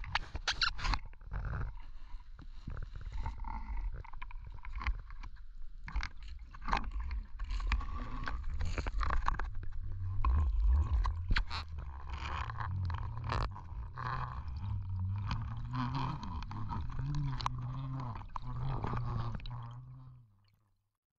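Muffled underwater noise through a camera housing: irregular clicks and knocks over a low rumble, cutting off abruptly about twenty seconds in.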